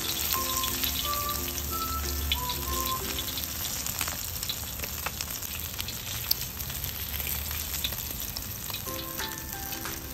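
Small whole fish coated in cornflour and rice flour deep-frying in hot oil in a wok: a steady sizzle with crackles. A light melody of short notes plays over the first few seconds and comes back near the end.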